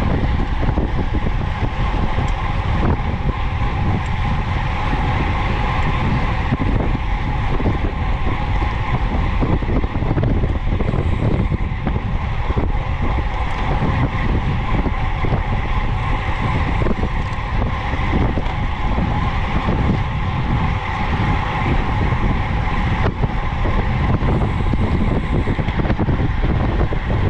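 Steady rush of wind on the microphone of a road bike ridden at speed, with the hum of its tyres on asphalt underneath.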